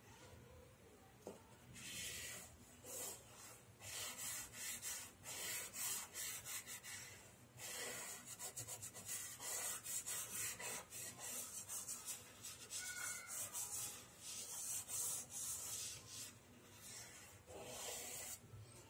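A pastel stick scratching back and forth on drawing paper, shading an area in quick strokes. The strokes come in runs of one to a few seconds with short pauses between them.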